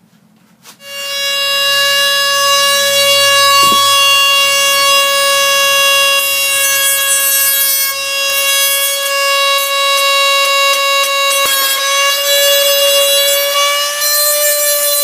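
Dremel rotary tool with a sanding bit starting up about a second in, then running with a steady high whine while it grinds the rear glass off an iPhone 8. The pitch shifts slightly near the end.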